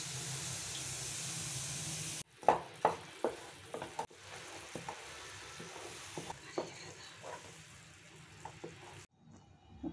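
Water poured onto jaggery in a hot nonstick pan hisses loudly. After a cut, the melting jaggery syrup bubbles and sizzles as a wooden spatula stirs it, knocking against the pan several times.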